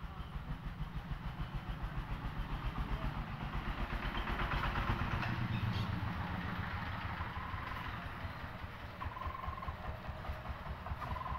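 A motor engine runs with a rapid low chugging, about five beats a second. It grows louder to about the middle and then fades somewhat, and a few short high tones come in over it in the second half.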